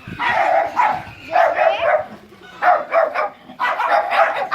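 Several dogs barking loudly in repeated bursts, about four bouts in quick succession.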